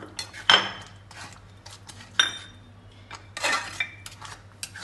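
A metal spatula stirring a thick pudding in a metal kadai, scraping along the pan and knocking against its sides. Two sharp ringing clanks come about half a second and two seconds in, then a run of scrapes and clinks.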